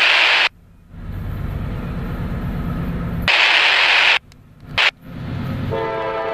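Bursts of static from a scanner radio, with the low rumble of an approaching diesel freight locomotive between them. Near the end the locomotive's air horn begins to sound, a steady chord.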